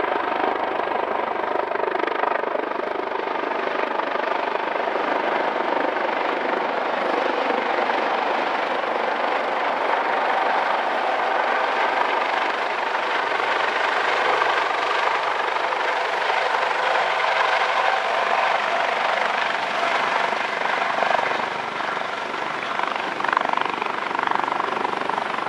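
Coast Guard HH-65 Dolphin helicopter's rotors and twin turbine engines running loud and steady as it flies in, hovers low and sets down on a grass field.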